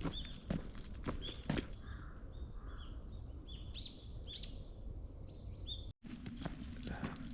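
Small birds chirping, a string of short curving chirps, clearest in the middle. Sharp knocks in the first second and a half and again near the end, after a brief break.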